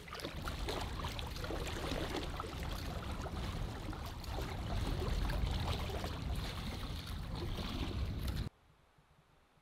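Water swishing and lapping along a canoe's hull as it is paddled, with wind rumbling on the microphone. The sound cuts off suddenly about a second before the end.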